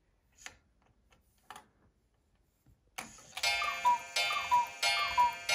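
Cuckoo clock striking the hour. After a few faint clicks from the hand being turned, it starts about three seconds in with a struck ring and a two-note falling cuckoo call roughly every two-thirds of a second. It is counting out four o'clock, the hour its strike train is set to.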